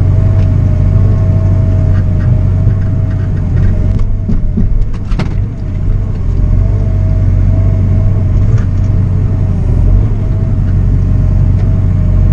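Bobcat compact excavator's diesel engine running steadily under working load, heard from inside the cab: a low drone with a steady whine over it, and a sharp knock about five seconds in as brush and logs are grabbed and moved.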